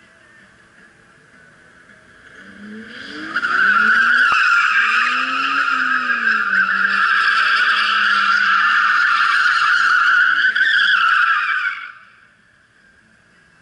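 A car's old tires squealing continuously as it drifts, with the engine revving up and down underneath. The squeal starts about three seconds in, lasts about eight seconds, and cuts off near the end.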